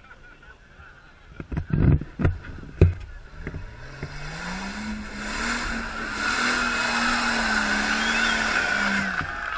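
Off-road 4x4's engine revving up over a couple of seconds and held at high revs while its tyres spin and throw mud and stones, with a hiss of spray. A few sharp knocks come before it, about two seconds in.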